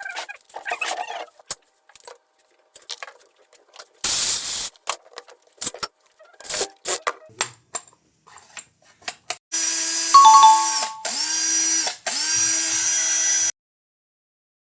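Scattered clicks and knocks of the cordless drill being handled and put back together, then the drill, fitted with its replacement motor, runs in three short bursts with a steady whine, its pitch dropping as it spins down between bursts.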